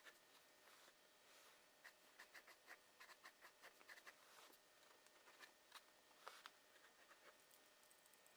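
Faint, quick scratching strokes of a drawing tool on paper, in short runs of several strokes a second.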